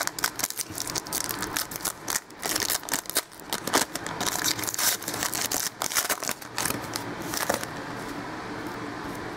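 Foil wrapper of a football trading-card pack crinkling and rustling as it is opened and the cards are pulled out; the crinkling stops about a second and a half before the end, leaving a low steady hum.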